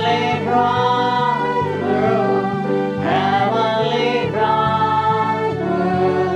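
A gospel hymn sung by voices over instrumental accompaniment, with a sung melody above a bass line that steps from note to note.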